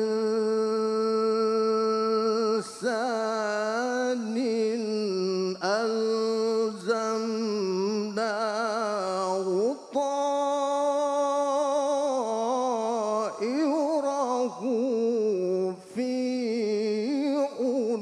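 A man reciting the Quran in a melodic, ornamented chant through a microphone. He holds long notes that waver and turn, in several long phrases with short breaks for breath between them.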